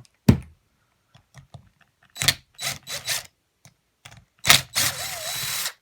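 Metal tool clinks as an 8mm socket is fitted, then a cordless impact driver runs for about a second, backing out a pre-loosened cylinder-head bolt.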